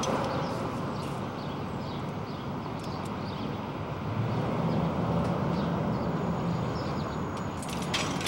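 Steady rumbling background noise like street traffic, swelling a little around the middle, with a few sharp clicks near the end.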